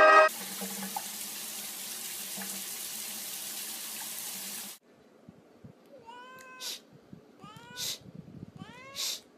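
A steady hiss for about four and a half seconds that cuts off suddenly, then a domestic cat meowing three times, about a second apart, each meow rising in pitch.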